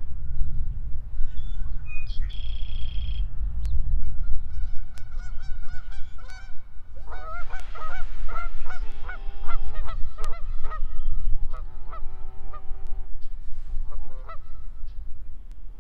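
Geese honking, a long run of repeated calls starting about five seconds in, thickest in the middle and thinning out near the end, over wind rumbling on the microphone.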